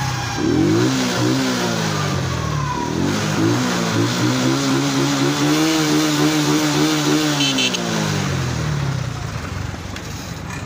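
Motorcycle engine revving, its pitch climbing and falling several times, with other vehicle engines running underneath; it settles lower near the end.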